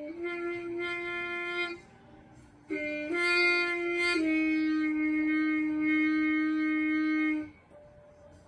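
A trumpet-family horn played with a mute over its bell, a slow melody of held notes. One note lasts under two seconds, then comes a pause of about a second. A short note steps up, then drops to a lower note held for about three seconds before it stops.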